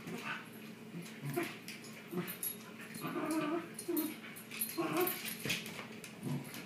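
Two Shiba Inus playing tug of war with a toy, making short, repeated play vocalizations, several within a few seconds, with light clicks of claws on a hardwood floor.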